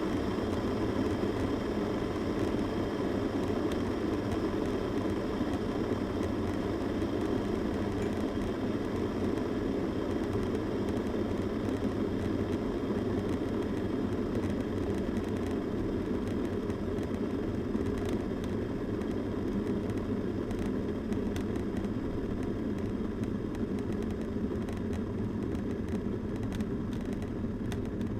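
Electric kettle boiling water: a steady rushing noise of bubbling and steam.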